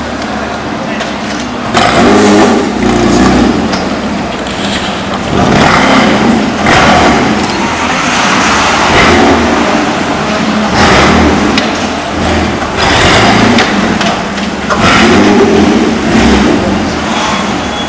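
Porsche Cayman GT4's 3.8-litre flat-six running through an Innotech Performance Exhaust as the car manoeuvres at low speed. The exhaust note swells with throttle every couple of seconds.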